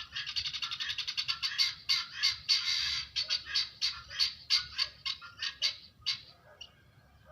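Baby chicks peeping, many short high cheeps in quick succession, thinning out and dying away about six seconds in.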